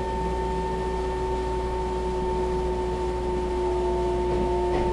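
Taiwan Railway EMU700 electric multiple unit heard from inside the car, running slowly along a station platform: a steady electric whine with two held tones over a low rumble, and a light click near the end.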